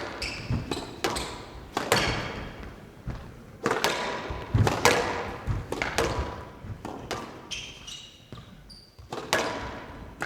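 A squash rally: the ball is struck hard by rackets and smacks off the court walls, a sharp crack every half second to a second, each echoing in the hall. Sneakers squeak on the court floor.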